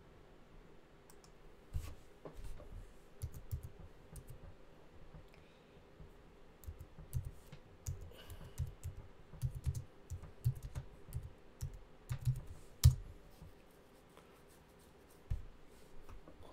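Typing on a computer keyboard: key presses come in irregular runs, with one sharper, louder click near the end.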